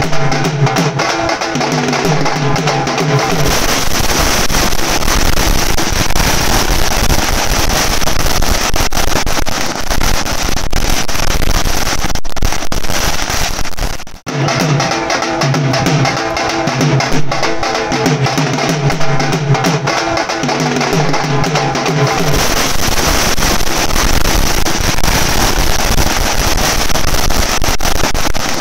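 A troupe of drummers beating a fast, steady rhythm on double-headed drums, alternating with long stretches of rapid crackling from firecrackers bursting on the ground. The crackling takes over again for the last several seconds.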